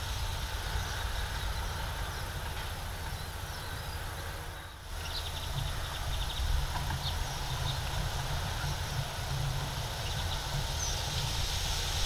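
A steady low rumble, dipping briefly near the middle, with faint, brief small-bird chirps now and then: a quick run of them around the middle and single ones later.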